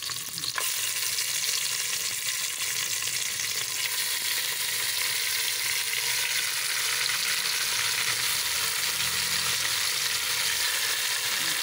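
Raw beef chunks sizzling in hot oil with browned shallots, garlic and ginger in an aluminium pot, as the beef goes in to sear. The sizzle steps up about half a second in and then holds steady.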